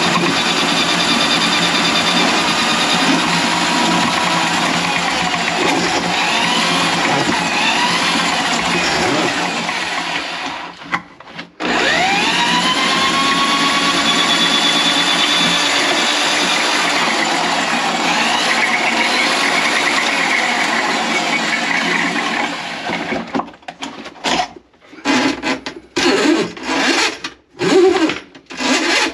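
Electric drain-cleaning machine running steadily with a constant hum while clearing a grease clog in the kitchen drain line. About eleven seconds in it stops briefly and then spins back up, and near the end it runs in short stop-start bursts.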